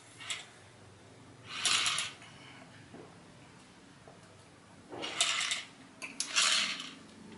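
A man drinking from a plastic shaker bottle: three short, noisy bursts of gulping and breathing, about two, five and six seconds in, over a quiet room.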